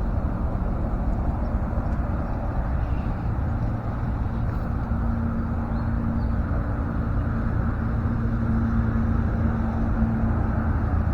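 A motor running steadily over a low rumble, with a steady hum tone that comes in about five seconds in.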